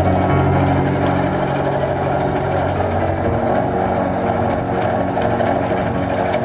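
Background music with sustained notes that change pitch every second or two over a dense, steady drone.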